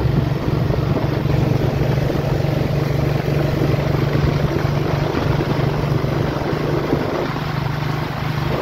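Steady drone of a moving road vehicle's engine, with road and wind noise from the ride.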